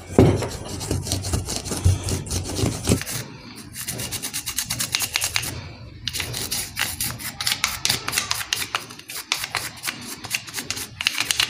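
A brush scrubbing and scratching inside the plastic stator housing of an inverter split-AC indoor BLDC blower motor, cleaning out blackened dirt, in rapid, scratchy strokes that come faster and more evenly in the second half.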